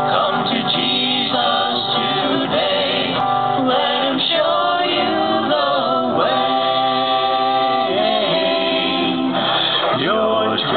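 A vocal group singing together in harmony, several voices at once.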